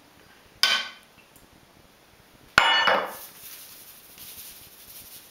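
Two sharp knocks of kitchen utensils and containers being handled at a mixing bowl: one about half a second in, and a second, with a brief rattle, near the middle. A faint hiss follows as salt is shaken from a tin onto flour.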